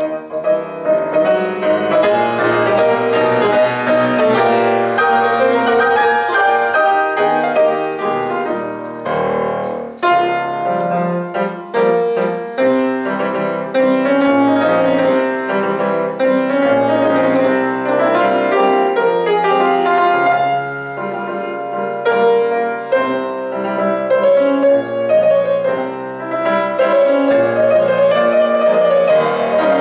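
Grand piano played solo in a fast classical passage, a dense stream of rapid notes.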